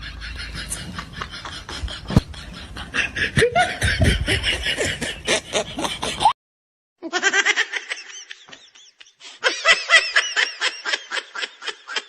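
Human laughter: a bout of rapid, pulsing laughing that cuts off suddenly about six seconds in. After a short gap, a second bout of laughing starts and dies away near the end.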